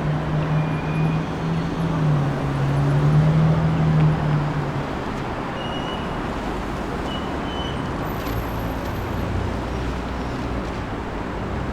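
Steady urban traffic noise under a low vehicle hum that swells around three to four seconds in and fades out about five seconds in.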